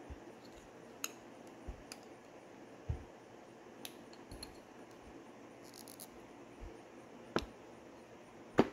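Scattered small clicks and taps of hands working rubber bushings and small parts off a power door lock actuator bracket on a workbench, with a sharper click near the end. A faint steady hum runs underneath.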